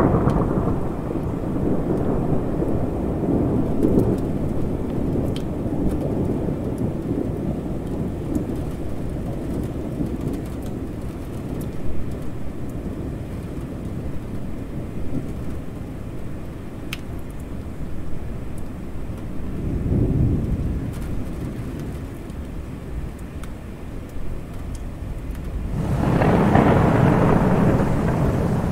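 Thunderstorm: steady rain with rolling thunder. A rumble swells at the start, a weaker one comes about two-thirds of the way through, and a long, louder rumble begins near the end.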